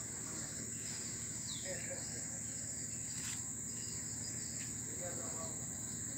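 Insects trilling steadily at a high pitch, with a short falling chirp about a second and a half in.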